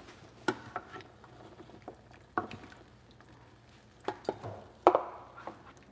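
Ladle knocking and scraping against a large stainless steel stockpot while soup is served out: a few scattered knocks and clinks, the loudest about five seconds in and ringing briefly.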